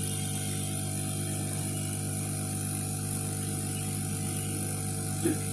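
Hot-air rework blower running, a steady hum with a high hiss of air, as it heats a small diode on a motherboard to desolder it. A soft tap near the end.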